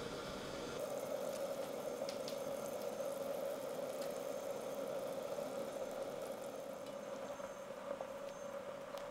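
A pot of braising liquid simmering on the burner, a steady bubbling hiss, with a few faint light clicks.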